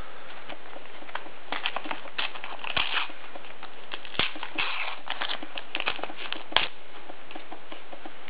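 A foil Panini sticker packet crinkling and being torn open by hand: a run of irregular crackles and sharp clicks with short rustles, starting about one and a half seconds in and dying away near the end.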